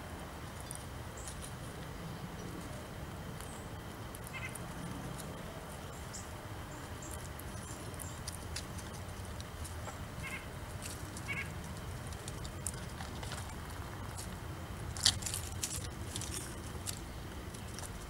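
Quiet backyard ambience: a steady low rumble with scattered small clicks and ticks, and three short faint chirps. One sharper click stands out about fifteen seconds in.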